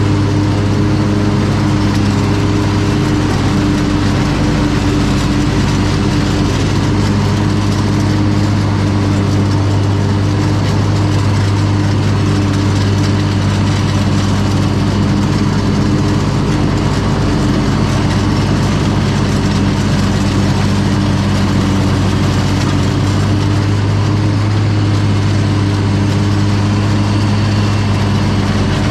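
Gravely lawn mower's engine running steadily at constant speed while mowing, its freshly sharpened blades engaged.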